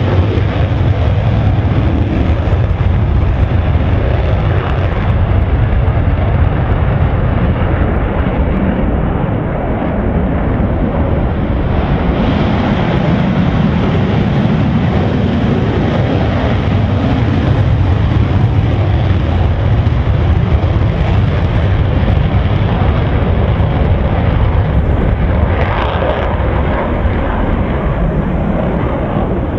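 F-16 Fighting Falcon single-engine jet fighters at high power on the runway for takeoff, giving a loud, steady jet noise that carries on without a break.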